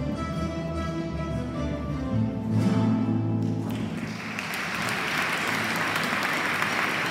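A guitar ensemble with double bass plays its closing chords, which stop a little over three seconds in. Audience applause starts about four seconds in and carries on steadily.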